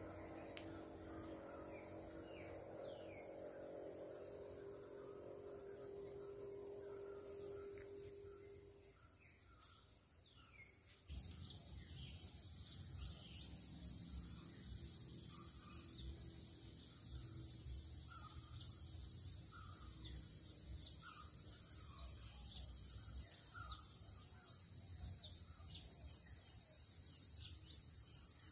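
Outdoor birdsong and insect ambience: a steady, high insect buzz with many quick chirps from birds. After a sudden step up in loudness about eleven seconds in, a call repeats roughly once a second.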